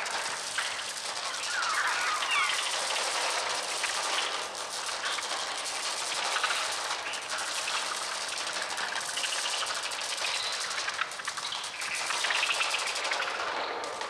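Electronically made bird sounds from a Mixtur-Trautonium: a dense, rattling flutter of many wings flapping, with shrill screeching cries that glide up and down, most clearly about two seconds in.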